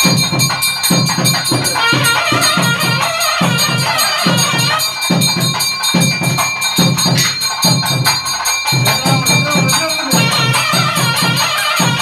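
Ritual temple music: a steady drum beat of about three strokes a second with jingling percussion and high ringing tones, and a wavering melody over it at times.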